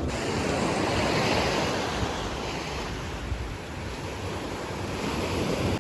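Sea waves washing onto a beach: a steady rushing surf that swells about a second in, eases off, and builds again near the end.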